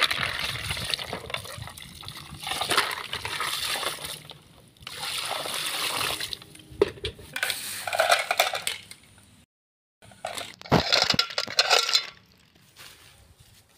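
Water poured from a bucket splashing over land snails being rinsed on the grass, in several pours. After a brief break, water is poured from a metal pan into a pot of snails, with some clinks and a knock.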